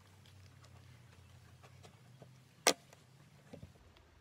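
Small makeup items being handled, with faint ticks and one sharp click about two and a half seconds in, over a low steady hum.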